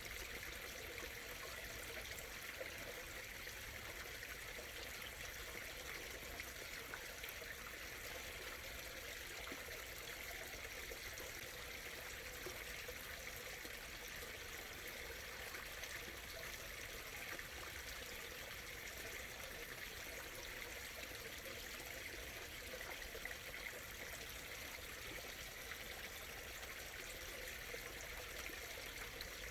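A small stream murmuring and trickling steadily over stones, an even water sound that does not change.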